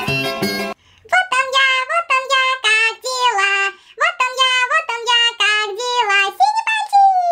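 Instrumental music that cuts off under a second in, then a high-pitched voice singing a short phrase in separate syllables, ending on a long note that slides down.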